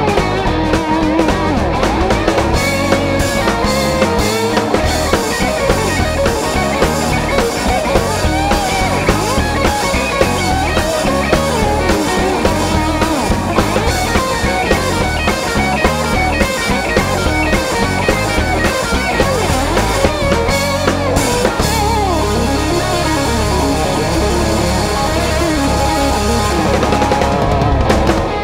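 Live rock band playing an instrumental passage: electric guitar over bass and drum kit.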